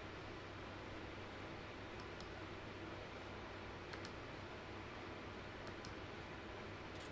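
Faint clicks of a computer mouse, mostly in close pairs like double-clicks, over a steady low hum and hiss from the microphone.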